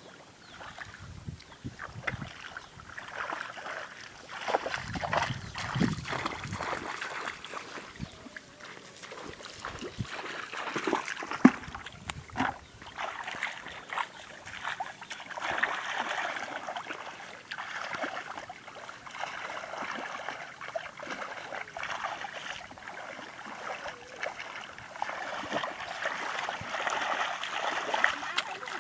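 Hands and legs sloshing and splashing through shallow muddy water and mud while groping for fish, in irregular splashes with one louder slap about midway.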